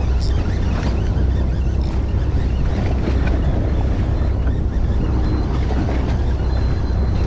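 Steady low rumble of a fishing boat's engine, mixed with wind buffeting the microphone.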